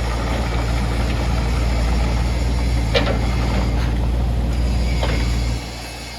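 Kubota U27-4 mini excavator's three-cylinder Kubota diesel running steadily, with two sharp knocks about three and five seconds in. The engine sound drops suddenly near the end.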